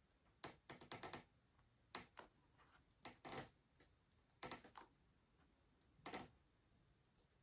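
Faint, scattered clicks and taps of small plastic and foam model parts being handled on a workbench, in about six short clusters with quiet between them.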